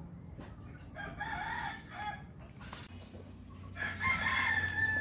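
A rooster crowing: a shorter broken call about a second in, then a longer drawn-out crow near the end.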